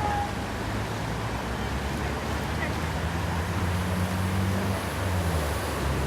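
A motorboat engine running steadily, its low hum shifting slightly in pitch about four seconds in, over wind and water noise.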